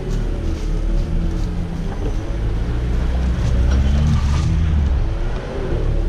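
Daihatsu Feroza's engine running under load, heard from inside the cabin, its pitch rising and falling as the vehicle drives over a muddy forest trail. A few light knocks and rattles come through, most of them about four seconds in.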